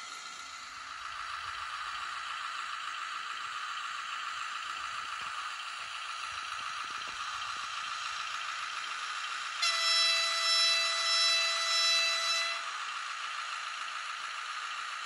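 Sound decoder of a Brawa N-scale Gravita diesel locomotive model playing a steady diesel engine running, thin and without bass through the model's tiny speaker. About ten seconds in, a horn blows for about three seconds.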